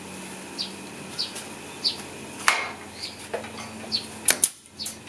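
Pneumatic staple gun firing double-leg staples through carpet into a wooden trailer bunk: one sharp shot about halfway in, then two quick shots near the end.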